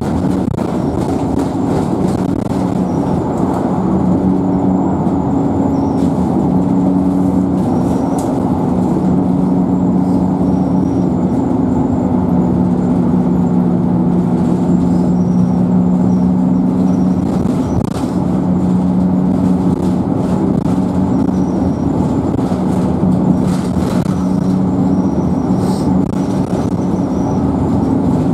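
Dennis Dart single-deck bus heard from inside the saloon while under way: a steady engine drone over tyre and road noise, its pitch shifting a little as the bus changes speed, with faint clicks and rattles from the interior.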